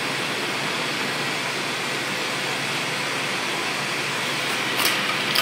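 Glassworking bench torch burning with a steady hiss of its flame, with two short sharp clicks near the end.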